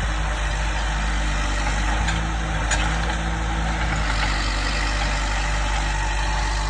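Diesel engine of land-clearing heavy equipment running steadily at a constant speed, with two faint clanks about two and three seconds in.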